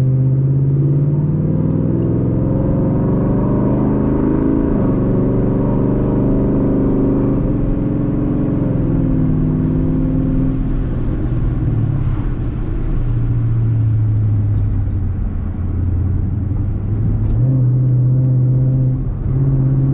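Car engine and road rumble heard from inside the car as it pulls away and drives on. The engine note climbs over the first couple of seconds, then falls and rises several times as the revs change.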